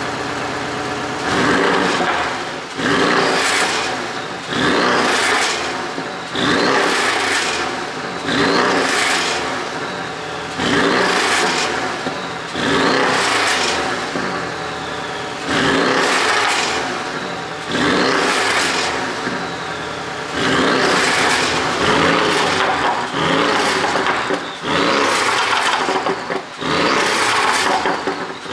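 Porsche 718 Boxster GTS's turbocharged 2.5-litre flat-four, ECU-tuned for exhaust pops, idling briefly and then blipped about every two seconds, each rev dropping back with popping and crackling from the exhaust on the overrun.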